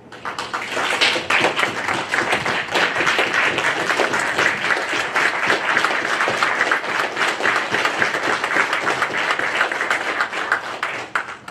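Applause from a small crowd of people clapping, starting suddenly and dying away near the end.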